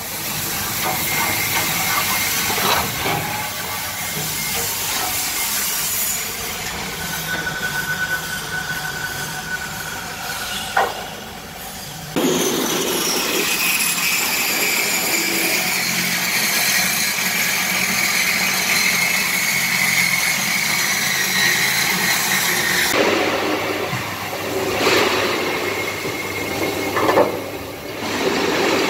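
MIG welding arc on aluminium: a steady, loud hiss and crackle with a faint whistle over it. The sound changes abruptly about twelve seconds in and again near the end.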